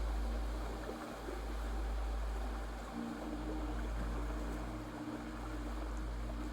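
Ambient meditation background: a steady rush like running water over a low droning hum that dips briefly about every two seconds, with a few soft held tones.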